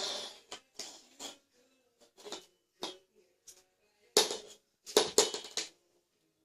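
Plastic parts of a Henry vacuum cleaner being handled: a scattered series of short clicks and knocks, about nine in all, with the loudest cluster about four to five and a half seconds in.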